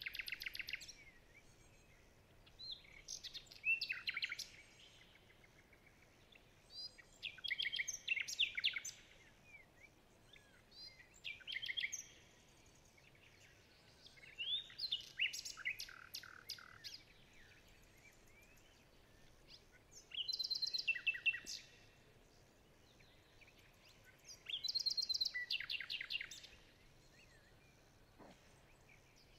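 Bird song: a phrase of rapid high chirps and trills about every four seconds, each lasting a second or two, over a faint steady background.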